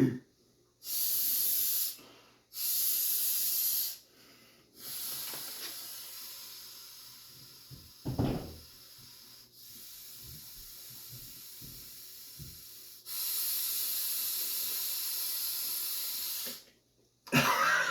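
Hard breaths drawn and pushed through a POWERbreathe breathing resistance trainer, each one a loud airy hiss through its resistance valve: two short, hard breaths, then longer, drawn-out ones. A brief low sound is heard about eight seconds in.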